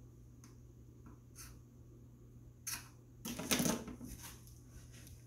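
Handling noises: a few soft clicks and rustles, then a louder rustling scrape about three and a half seconds in, over a steady low hum.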